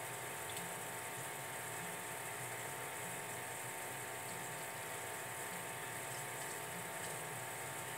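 Aquarium water circulation running steadily: a constant watery hiss with a faint steady hum.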